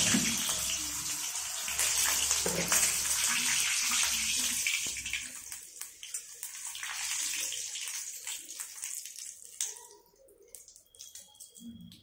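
Papad (crisp cake) frying in hot oil in a steel wok. A dense, loud sizzle runs for about six seconds, flares again briefly, then dies down near the end, with a few light clicks.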